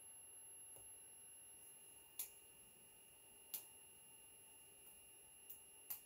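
Near silence with a faint steady high whine, broken by two sharp clicks about a second and a half apart, around two and three and a half seconds in, then two fainter clicks near the end.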